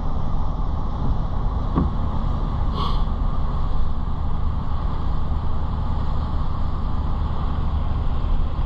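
Steady low rumble of a car being driven: road and engine noise, with a faint tick about two seconds in.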